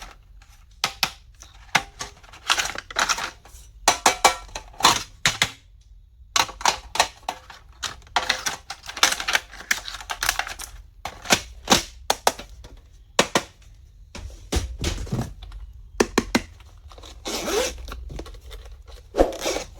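Hands handling stationery and plastic packaging: a run of sharp clicks and taps mixed with crinkling and rustling.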